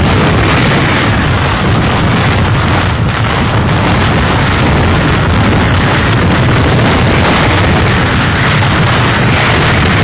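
Hurricane-force wind, a loud steady rush with heavy low buffeting of the wind on the microphone.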